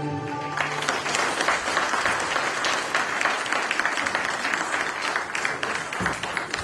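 The dance music's last held note cuts off about half a second in, and the audience breaks into steady applause that carries on to the end.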